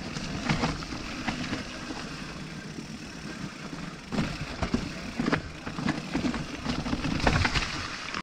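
Mountain bike rolling over rough trail, recorded on the bike's action camera: a steady rumble of tyres and wind on the microphone, with frequent sharp knocks and rattles from the bike, busiest about halfway through and again near the end.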